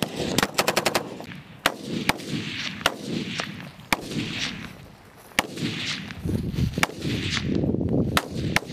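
Gunfire on a live-fire range: a quick burst of about half a dozen shots near the start from a belt-fed machine gun, then single rifle shots roughly every second, some sharp and others fainter.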